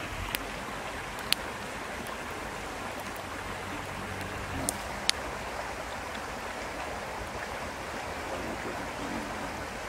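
Shallow river running over stones: a steady rush of water, with a few sharp clicks in the first half.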